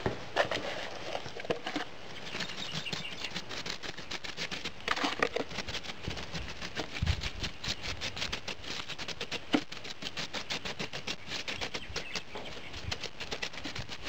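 A hand pressing and working a damp, crumbly ganister mix (a clay and silica rock mix) onto a furnace pedestal, making a rapid, uneven run of small clicks.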